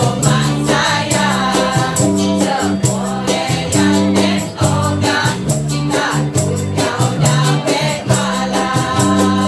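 Live acoustic band and backing choir performing a Malay song: group singing over a steady bass line, with hand percussion ticking out a regular rhythm.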